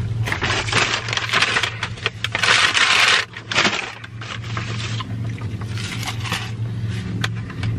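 Crinkling and rustling of fast-food paper and plastic packaging being handled, in irregular crackles, loudest around the middle. Under it runs a steady low hum from the car's idling engine.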